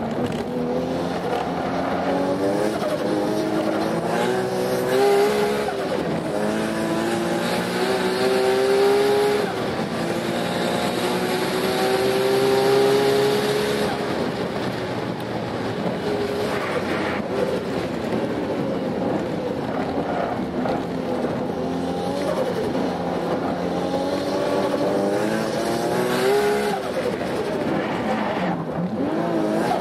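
Turbocharged RB26 straight-six (T04Z turbo) in a Toyota Altezza race car under hard driving, heard from inside the cabin. The engine note climbs in pitch and drops back again and again as it accelerates and comes off the throttle.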